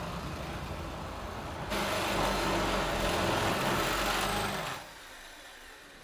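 Power drill running a bit into metal: a steady grinding noise that comes in loud about two seconds in and stops shortly before the end, after a quieter steady noise at the start.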